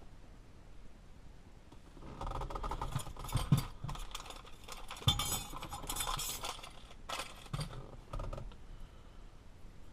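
Small metal parts clinking and rattling as they are handled, with a run of clicks and two sharper knocks, starting about two seconds in and dying away near the end.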